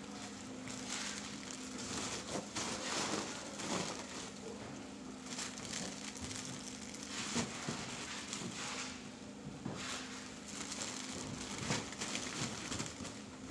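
Plastic-wrapped towel packs rustling and crinkling as they are handled and packed into a cardboard carton, with a couple of sharper knocks. A steady low machine hum runs underneath.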